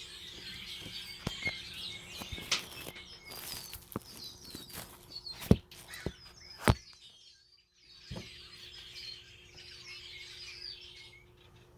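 Many wild birds chirping and calling together in trees, a dense chorus of short high chirps. Two sharp clicks, the loudest sounds, come about five and a half and nearly seven seconds in.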